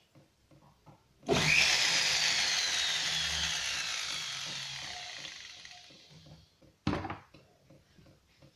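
A small high-speed rotary tool starts suddenly at full speed, then spins down. Its whine falls steadily in pitch as it fades over about five seconds. A short sharp burst follows near the end.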